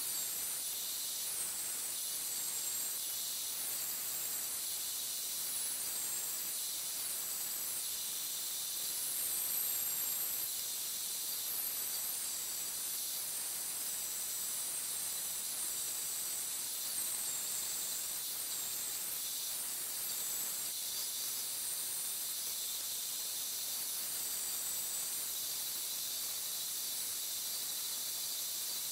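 Vertical bandsaw blade cutting thin 52100 carbon steel sheet for a knife blank. It makes a steady high hiss with a thin, high whine that wavers up and down as the steel is fed into the blade.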